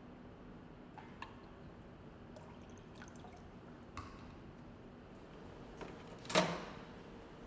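Faint scattered clicks and taps of a glass beaker of water being handled at a microwave oven, then a louder short rush of noise about six seconds in.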